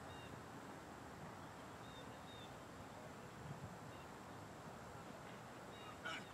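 Faint open-air ambience: a steady low hiss with a few faint, short bird chirps. A brief louder sound comes right at the end.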